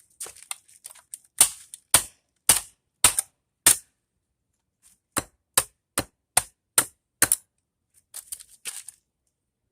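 Hard, sharp blows in two runs, about five and then six, roughly two a second, with a few lighter knocks near the end: a plastic housing being struck to break it open and free the magnet inside.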